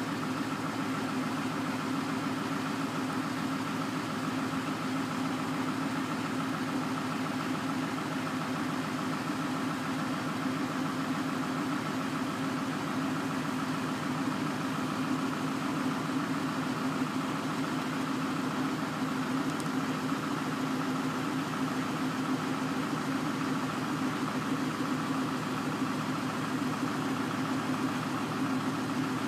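A yard tractor's engine running steadily at idle while powering the hydraulic hoist, as the end dump trailer's box slowly rises.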